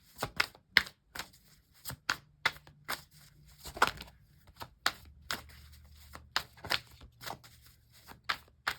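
Tarot cards being shuffled and handled: a string of irregular light snaps and clicks, a few each second.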